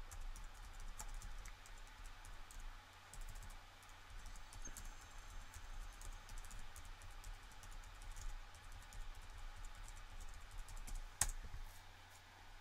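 Faint, irregular clicking and tapping of a computer keyboard and mouse, with one sharper click about eleven seconds in, over a steady low electrical hum.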